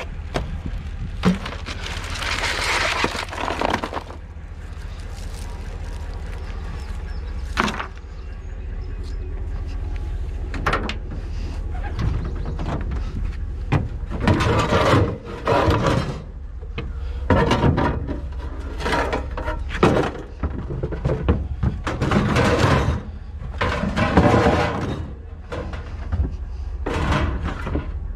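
Junk being handled and shifted by hand: irregular thunks, clatters and scraping, in a cluster of bursts about halfway through, over a steady low rumble.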